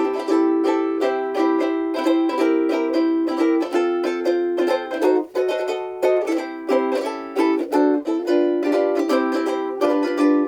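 Seilen SLVS-255 soprano ukulele with a Hawaiian koa body, strummed in a steady rhythm of several chord strokes a second, the chords ringing between strokes.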